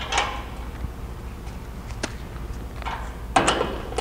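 A few light metallic clicks and clinks, spread out with a quick pair about three and a half seconds in, as a bolt and a cordless impact wrench are handled on a steel suspension mount.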